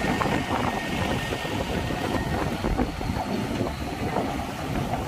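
Diesel trucks running as they drive over a steel deck and ramp onto a ferry: a steady low rumble with scattered knocks.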